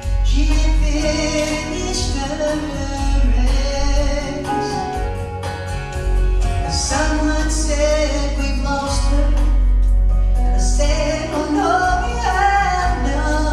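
A gospel group singing in harmony over instrumental backing with a strong, steady bass.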